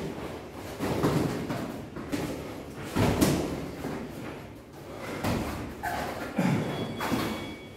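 Boxing gloves landing on gloves and headgear during sparring: a series of dull, irregularly spaced thuds, the loudest about three seconds in.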